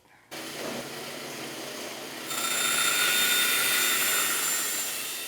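Bandsaw switched on and running with a steady motor hum. About two seconds in the blade cuts into the plywood, adding a louder high hissing whine. The sound fades near the end as the cut ends and the saw winds down.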